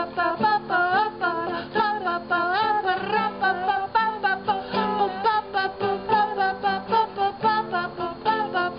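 A wordless 'ba ba ba' vocal line, one short sung syllable about every quarter second, over a strummed acoustic string accompaniment.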